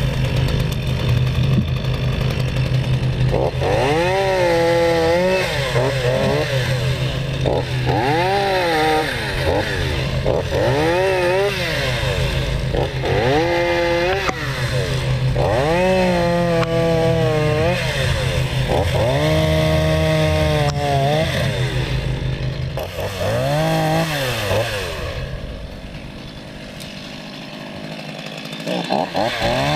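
New Stihl two-stroke chainsaw running on its first start-up, idling and revved again and again, its pitch rising and falling every couple of seconds. About twenty seconds in it holds one longer rev. Near the end it drops to a quieter, low idle, then revs up once more.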